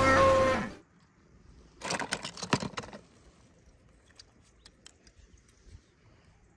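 A short burst of clattering clicks from small hard objects, lasting about a second, then a few faint scattered ticks.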